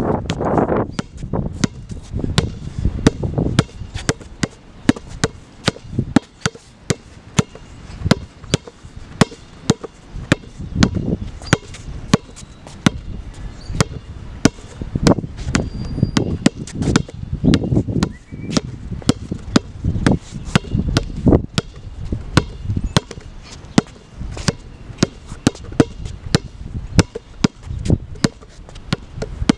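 Basketball being dribbled on an outdoor hard court: a steady run of sharp bounces, about two a second, over a low rumble.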